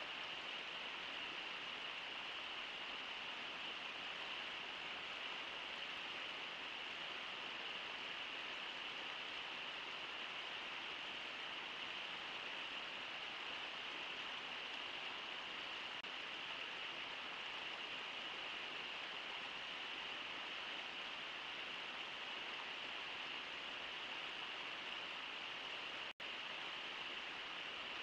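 River water rushing steadily, an even hiss with no separate splashes standing out. The sound cuts out for an instant near the end.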